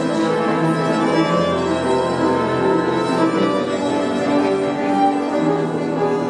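Violin playing a melody of long held notes, accompanied by an upright piano.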